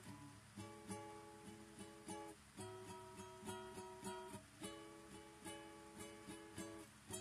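Solo acoustic guitar playing an instrumental swing-blues rag: picked single notes and chords in a steady, lilting rhythm.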